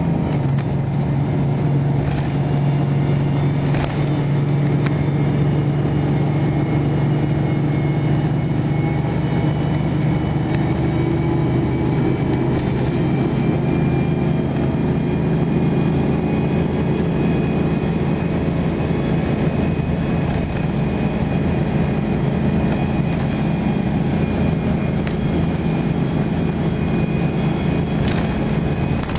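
Detroit Diesel 6V92TA two-stroke V6 diesel of a Nova Bus Classic city bus running steadily under way, heard from inside the passenger cabin, with a faint steady high whine over the low engine drone.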